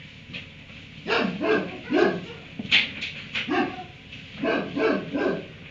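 A dog barking, a run of short barks starting about a second in.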